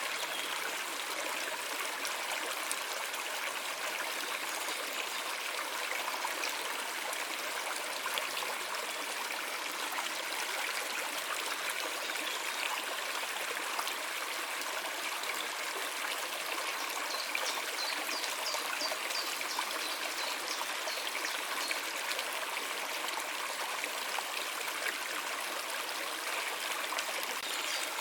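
Water flowing steadily in a stream, an even rushing trickle with no breaks. A run of faint high ticks sounds a little past the middle.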